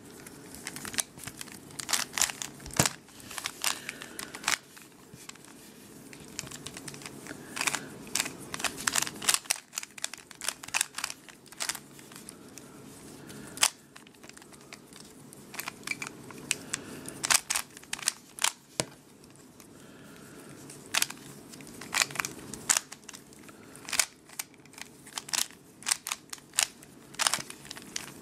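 A stickerless Rubik's cube being turned quickly by hand during a solve: its plastic layers click and clack in rapid, irregular bursts with short pauses between sequences of moves.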